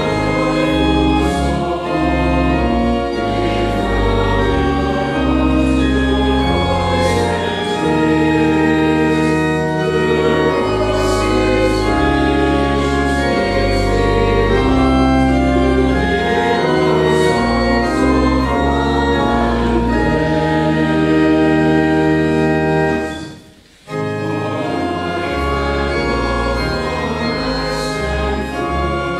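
Church organ accompanying a choir and congregation singing a hymn, held chords over changing deep bass notes. The music stops briefly about 23 seconds in, at the break between verses, then starts again.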